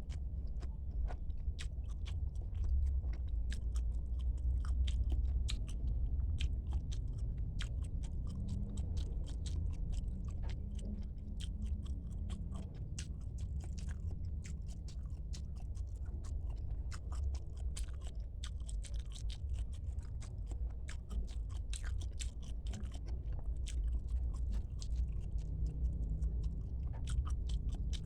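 Close-miked chewing and biting of a person eating a meal of tilapia and spinach, with many small, irregular wet mouth clicks and crunches over a steady low hum.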